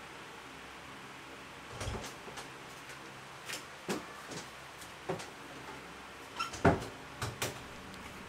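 Scattered knocks and clicks of a person moving about a small room: a wooden door or cupboard being handled, with one heavier thud about two-thirds of the way through.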